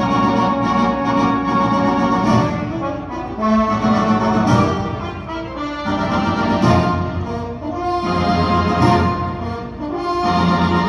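Orchestral music led by brass, with swelling chords that change every second or so.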